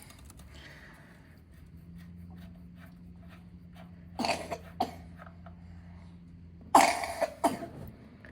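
A person coughing twice, about four seconds in and again near seven seconds, each time a short double cough, over a faint steady low hum.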